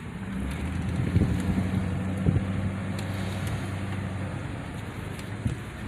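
Car engine running steadily under road noise, with a couple of light knocks about one and two seconds in.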